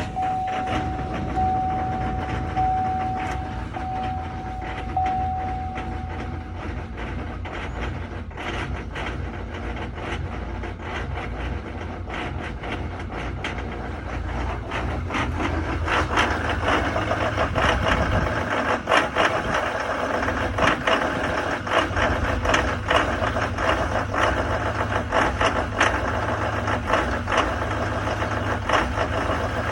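2019 Duramax diesel pickup engine idling roughly just after a cold start in sub-zero weather. A warning chime beeps about once a second for the first six seconds, and about halfway through the engine's clatter grows louder and busier. The owner says this rough idle has been there since the truck was new.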